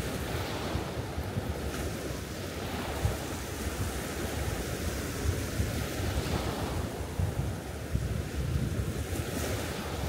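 Small waves breaking and washing up a sandy beach in a steady surf wash, with wind buffeting the microphone as a low rumble.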